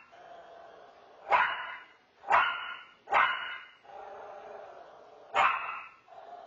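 A dog barking four times: three barks about a second apart, then one more after a pause of about two seconds.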